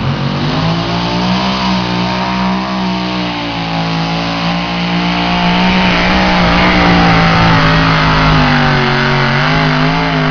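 Engine of a pulling truck or tractor running hard at high, steady revs under load during a pull, growing louder about halfway through.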